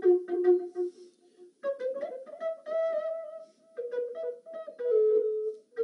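Background music: a slow melody of held notes, pausing briefly about a second and a half in before the phrase resumes.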